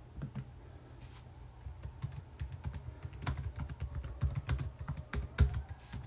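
Typing on a computer keyboard: quick, irregular keystroke clicks that start about a second and a half in and come faster toward the end.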